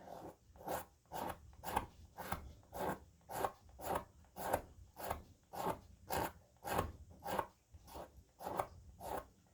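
Wooden tool handle being scraped down by hand in steady, even strokes, about two a second, taking off the old finish to reveal the bare wood.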